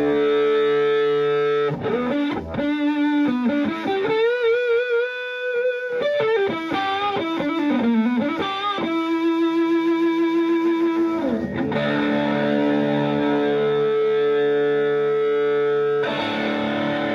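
Stratocaster played through a Rangemaster-style treble booster pedal into a Fender Twin Reverb–style amp, lightly overdriven. It rings out a held chord, plays a single-note lead with string bends and vibrato in the middle, then holds chords again near the end.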